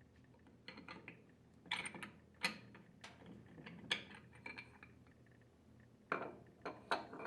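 Faint, scattered clinks and taps of metal pump parts being handled, as the mechanical seal's rotating part is taken off the rotor shaft and the seal seat out of the bracket.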